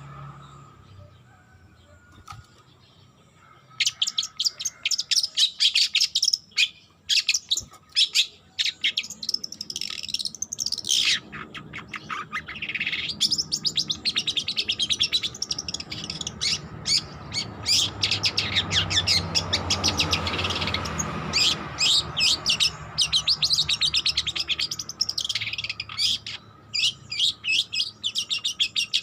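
Young long-tailed shrike (cendet) singing a rapid, scratchy, chattering subsong, starting about four seconds in and running on with short breaks. This is a juvenile still learning its song.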